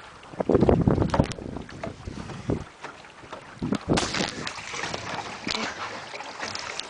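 Wind buffeting the microphone and water rushing past the hull of a small proa sailing canoe under way. Heavy gusts of wind noise in the first second or so, then from about four seconds in a steadier hiss of water.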